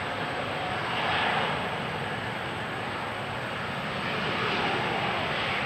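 Boeing 787-9 airliner's jet engines at takeoff thrust as it rolls and climbs out: a steady, dense jet roar that swells about a second in and again near the end.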